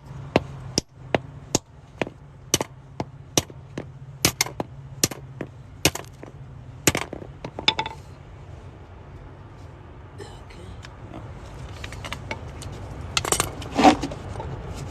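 Sharp metal-on-metal taps, irregular at about two to three a second, as the removed locking lug nut is knocked loose from the extractor socket. The tapping stops about eight seconds in, and a couple of louder scraping knocks come near the end.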